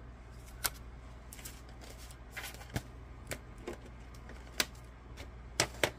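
Scattered light clicks and taps of hands handling a strip of low-tack tape and card on the plates of a manual die-cutting machine, with the sharpest taps near the end.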